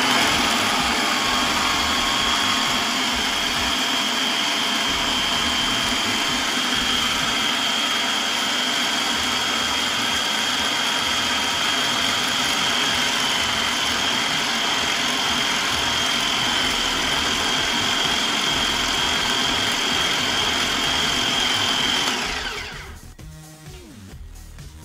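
Small electric food processor running steadily with a high whine, its blade grinding roasted peanuts with honey, salt and olive oil into peanut butter. The motor cuts off and winds down about 22 seconds in.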